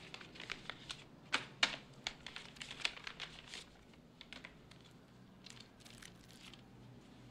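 Paper envelope rustling and banknotes being pulled out and thumbed through: a run of short, irregular crinkles and flicks, thinning out after about four seconds.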